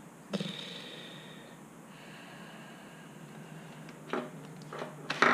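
HP G6 laptop's power button clicked, then a faint high-pitched whine from its cooling fan spinning up as the laptop powers on. The whine settles to a lower steady tone after about a second and a half. Near the end come a few sharp clicks and knocks of hands handling the laptop.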